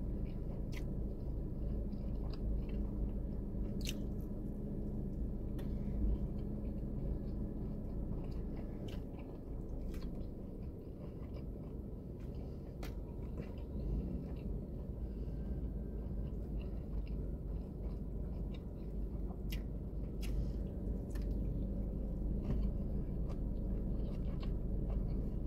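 A person chewing and biting teriyaki and General Tso's chicken with vegetables, close to the microphone, with scattered small clicks over a steady low hum inside a car.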